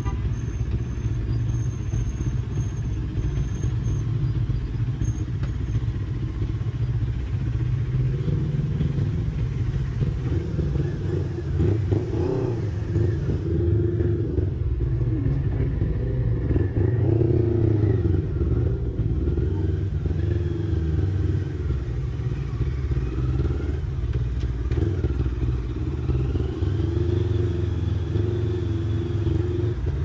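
CFMoto 400NK motorcycle engine running while it is ridden over a rough dirt road, mixed with steady wind noise. Its pitch rises and falls with the throttle in the second half.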